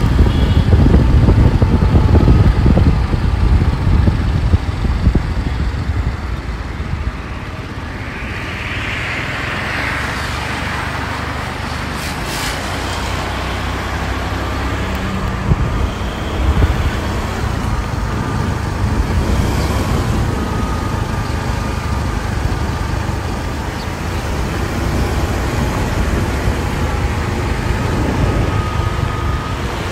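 Road and wind noise from riding a motorbike through traffic. A gusty low wind rumble on the microphone is heaviest for the first few seconds, then settles into a steadier rush of moving traffic.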